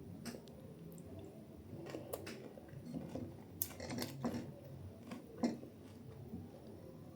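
A person chewing and biting into a KFC fried-chicken meal, with irregular crunchy bites and wet chewing noises now and then.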